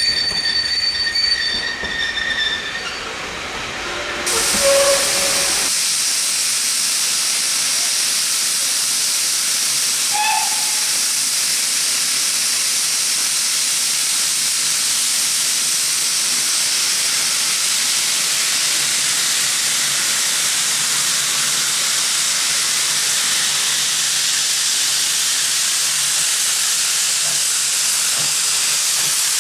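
Carriages rolling out with a brief high wheel squeal. After about five seconds comes a steady loud hiss of steam from South Eastern & Chatham Railway H class tank engine No. 263, blowing out at the front of the engine as it moves slowly along the platform.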